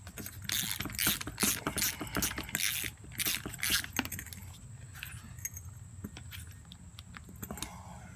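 Hand tools and nuts clicking and scraping on metal as the cooling fan is fastened onto the new fan clutch: rapid irregular clicks, busier in the first half and thinning out later.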